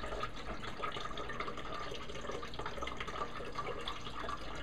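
Rum pouring in a steady stream from an upturned bottle into a blender jar that already holds cream.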